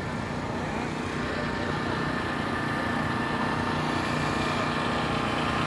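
A motor vehicle's engine running at a steady pitch, growing slightly louder.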